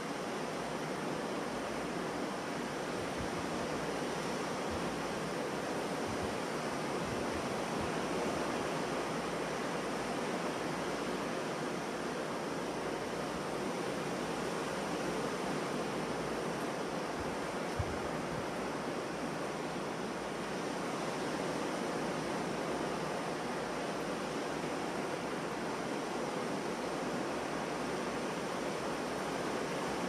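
Ocean surf breaking on a beach: a steady, even wash of waves with no single wave standing out.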